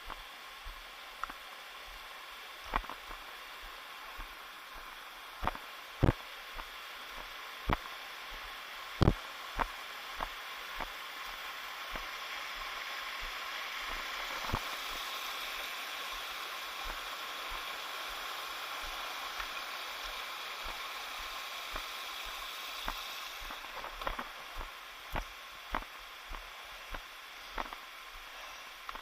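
Steady rush of a stream's flowing water, growing a little louder through the middle, with scattered sharp knocks.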